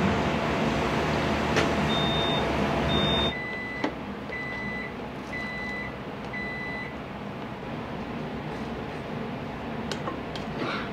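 Short electronic beeps from a kitchen appliance: two higher beeps, then four lower beeps about a second apart, over a steady kitchen hum that drops sharply about three seconds in.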